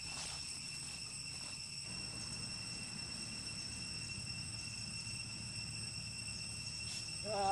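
Insects calling steadily in several unbroken high-pitched tones, over a low rumble.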